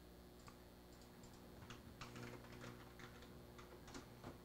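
Faint clatter of computer keyboard keys typing a file name: a quick run of keystrokes from about a second and a half in, ending with a key press (Enter) near the end.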